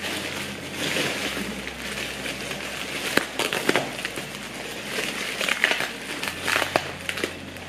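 Plastic parcel packaging crinkling and rustling as it is handled and pulled open, with scattered sharp crackles.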